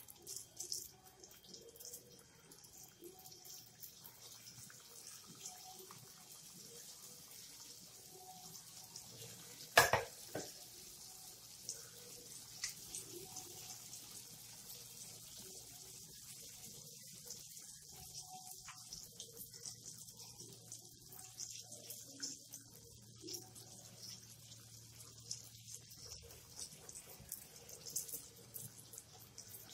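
Doughnuts deep-frying in hot oil in a wok: a faint steady sizzle with fine crackling throughout, and one sharp knock about ten seconds in.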